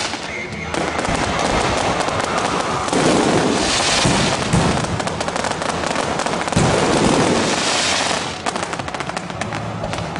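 Electronically fired fireworks going off at close range: a dense run of rapid cracks and bangs that swells louder twice, with music playing underneath.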